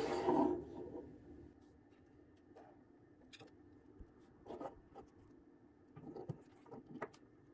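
Small plastic-housed gearmotors and lead wires being handled on a wooden desk: a knock and rattle near the start as a motor is set down, then scattered light clicks and rustles of wire being handled.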